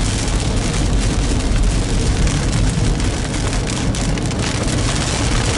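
Steady road and rain noise inside a moving car on wet roads: a low rumble with an even hiss from the tyres and the rain.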